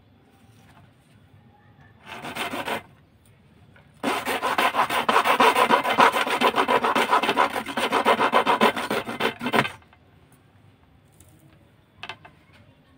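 A knife blade sawing back and forth across a thin fiberglass rod resting on a wooden block, cutting it: a short burst of strokes about two seconds in, then a long run of quick, even strokes lasting over five seconds, and one brief scrape near the end.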